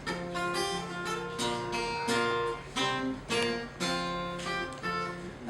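Unamplified acoustic guitar strummed in a steady rhythm, playing the song's instrumental intro.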